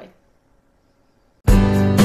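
Near silence, then music starts abruptly about one and a half seconds in, loud, with a steady beat.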